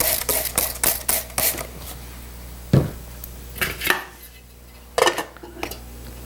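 Trigger spray bottle squirting water into a metal glue pot of glue flakes, a quick run of squirts about four or five a second for the first second and a half. A few scattered knocks and clinks follow.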